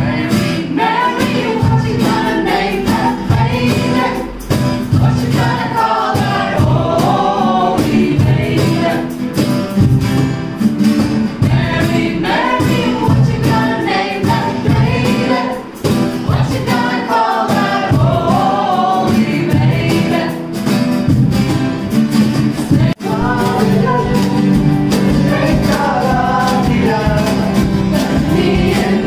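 A group of carollers, men and women together, singing a Christmas carol with strummed guitar accompaniment. About two-thirds of the way through the singing cuts off abruptly and picks up again in another carol.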